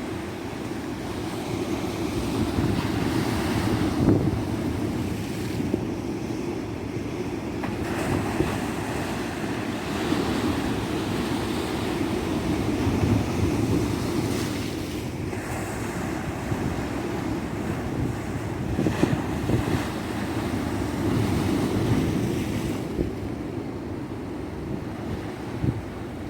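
Tropical ocean surf breaking on a beach, a continuous wash of waves swelling and easing every few seconds, with some wind on the microphone.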